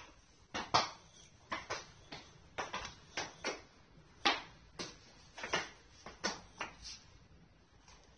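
A small child's shoes stepping and stomping on a tile floor: about fifteen sharp, irregular taps and knocks over the first seven seconds or so.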